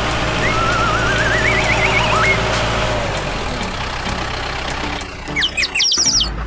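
A steady low engine rumble of a miniature construction machine, with a wobbling cartoon-style whistle that rises in pitch over the first two seconds, then a few short high squeaky chirps near the end.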